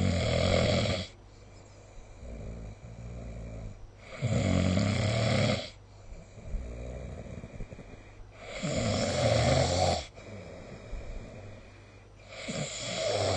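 A sleeping person snoring: four loud snores about four seconds apart, each lasting about a second and a half, with quieter breathing in between.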